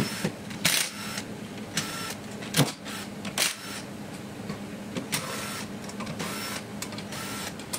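Cordless electric driver whirring in about six short bursts as it spins out the camshaft bearing cap bolts on a Toyota 7M-GE cylinder head. There is a sharp metallic click about two and a half seconds in.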